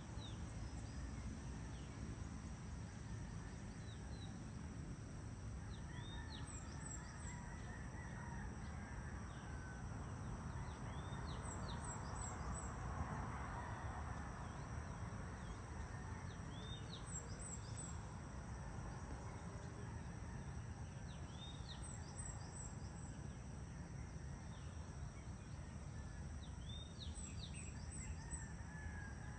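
Outdoor ambience of a steady low background rumble. A bird repeats a short, high chirping phrase about every five seconds, and distant fowl call faintly.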